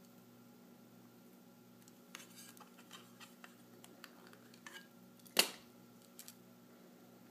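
Small clicks from the dials and buttons of a Pentax K-5 DSLR being turned and pressed, with one much louder, sharp click about five seconds in.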